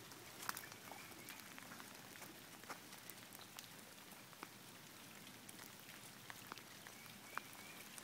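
Steady rain falling onto a waterlogged, flooded yard and its puddles: a faint even hiss with scattered individual drops ticking close by. A faint short chirp is heard about half a second in and again near the end.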